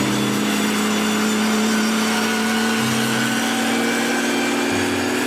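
Heavy-haulage truck's diesel engine running steadily under load as it pulls a locomotive on a multi-axle low loader, a constant pitched drone.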